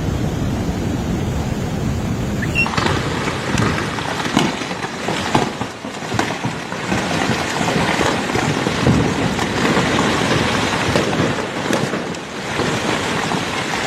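Rushing floodwater: a loud, steady noise of moving water, changing abruptly about three seconds in.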